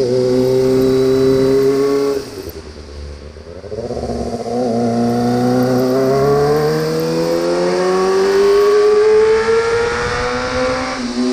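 Kawasaki ZX25R's 250 cc inline-four engine through an Austin Racing exhaust, running on throttle at a steady pitch, eased off for about two seconds, then pulling again with the pitch climbing slowly and steadily until near the end.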